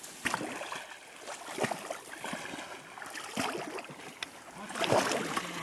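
Wading footsteps sloshing and splashing through shallow marsh water and mud, irregular steps about a second apart, with the biggest splash near the end.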